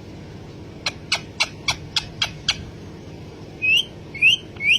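Pet parrot calling: a quick run of seven sharp clicks, about four a second, then three short rising chirps near the end.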